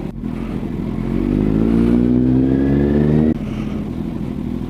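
Kawasaki inline-four superbike pulling away: the engine revs climb steadily for about two seconds, then drop suddenly and it runs on at lower revs.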